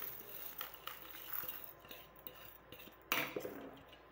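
Dry spice seeds brushed off a stainless steel plate into a steel mixer-grinder jar: light rustling and small clinks, then a sharper metal clatter of the plate against the jar about three seconds in.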